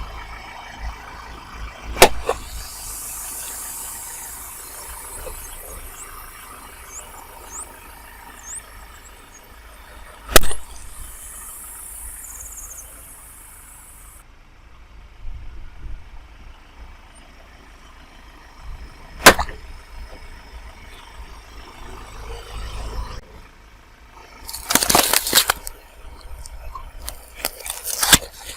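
Car tyre rolling over and crushing objects: three sharp pops several seconds apart, then longer crunching noises near the end, over a low vehicle rumble.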